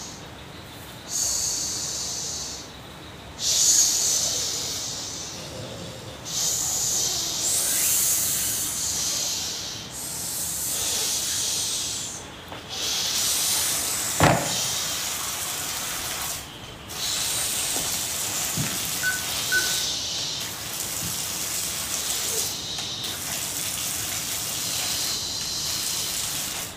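A person hissing hard through the teeth in long drawn-out breaths, one after another with short gaps between them. A single sharp knock about halfway through.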